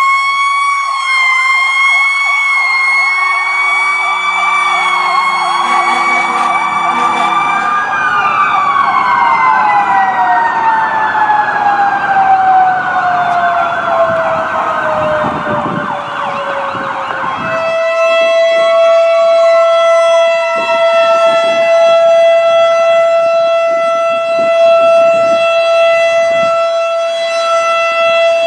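Several fire truck sirens sound at once, wailing and warbling over each other. About eight seconds in, one winds down in a long, slow falling tone. From a little past halfway, a single steady siren tone holds to the end.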